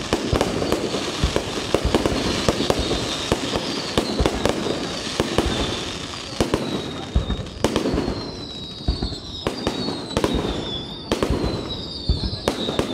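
Aerial fireworks display: a dense run of sharp bangs and crackling bursts, thinning a little partway through, with several high whistles falling in pitch from about halfway in.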